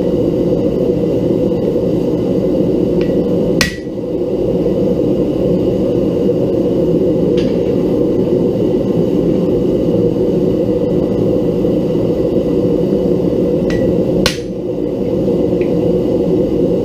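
Steady roar of a homemade forge burner, with two sharp hammer blows on metal about ten seconds apart, one near the start and one near the end, and a few faint ticks between.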